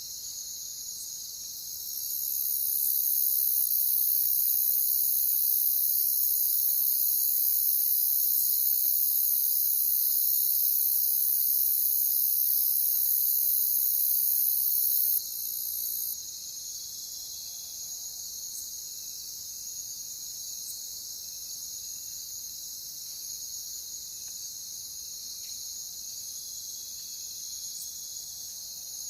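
Crickets chirping in a steady, dense chorus. About two seconds in, a louder, much higher-pitched insect trill joins and becomes the loudest sound, then cuts off abruptly about fifteen seconds in.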